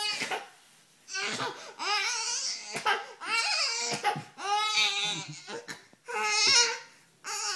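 Young baby squealing and half-crying, half-laughing in a string of about five short, high-pitched bursts while being held up and played with.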